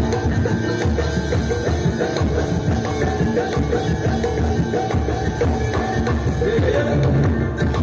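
Live accompaniment music for a Javanese jaranan horse dance: drums and jingling percussion playing a dense, busy rhythm over held pitched tones.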